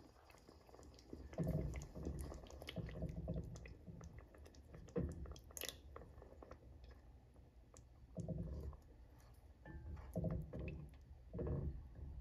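Silicone spatula stirring thick chicken gravy in a pot, in irregular strokes with small clicks between them.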